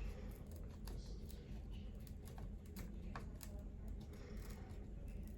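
Scattered faint clicks and light taps of small metal parts being handled while a Magpul M-LOK bipod's mounting screws are fitted to a rifle handguard, over a low steady hum.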